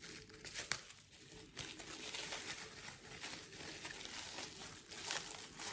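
Plastic bubble wrap crinkling with irregular crackles and snaps as a heavily taped bundle is unwrapped by hand.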